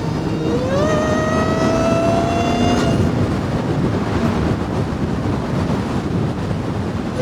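Car driving at speed, with steady road and wind noise. About half a second in, a whine rises in pitch as the car accelerates, then holds level for a couple of seconds before fading.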